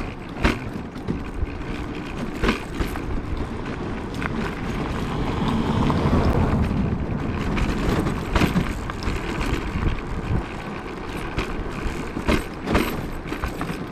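Zero 10X electric scooter and its trailer rolling over a bumpy, stony gravel road: a steady rumble of tyres on stones, with sharp knocks from bumps several times.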